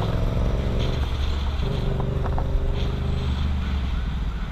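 Motorcycle engine running steadily under light throttle while filtering slowly through traffic, with road and wind noise; its note shifts about a second and a half in.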